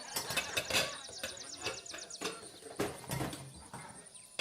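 Mixed outdoor party ambience: background music under scattered knocks and clatter, with a rapid run of high, falling chirps in the first second.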